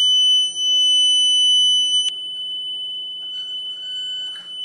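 Small electronic buzzer wired to a hall effect proximity sensor, sounding one continuous high-pitched tone. About two seconds in there is a click and the tone gets quieter and thinner, but the buzzer stays on, with the sensor's signal line at 1.8 volts.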